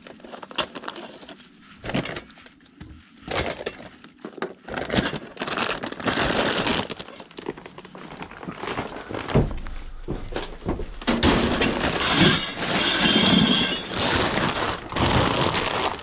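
Junk being rummaged through and handled: a run of clattering knocks, clinks and crunches as hard items, some of them glassy, are shifted and knocked together, loudest in two long spells in the second half.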